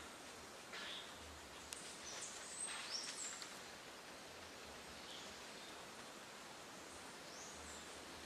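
Faint outdoor ambience: a steady hiss with several short, high bird chirps and whistles, the loudest cluster about two to three and a half seconds in.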